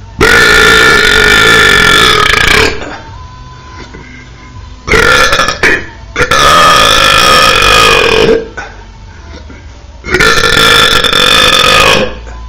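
Loud, drawn-out power burps: three long belches of about two seconds each, each held at a steady pitch. A short belch comes just before the second long one.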